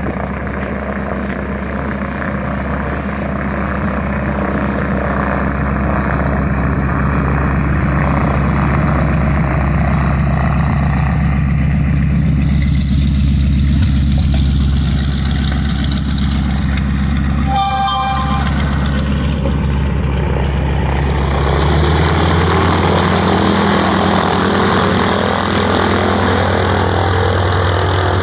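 AT-6 Texan's nine-cylinder Pratt & Whitney R-1340 radial engine running at a low taxi idle, loud and steady, with a brief high squeal about eighteen seconds in and a change in the engine note a few seconds later.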